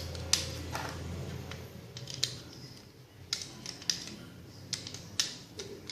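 Plastic parts of a Tobot W transforming toy clicking and snapping as they are twisted and folded into place, a dozen or so sharp, separate clicks at uneven intervals.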